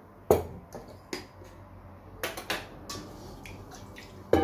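A series of sharp clicks and knocks from a metal spoon and kitchen containers on a countertop, then near the end a hard knock as a stainless-steel mixing bowl is moved and set down, leaving it briefly ringing.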